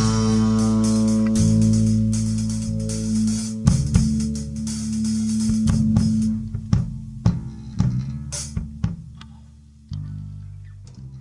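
Live rock band of electric guitar, bass guitar and drum kit letting a held chord ring out and die away at the close of a song, with scattered drum hits over the decay. A last low bass note is struck near the end and fades.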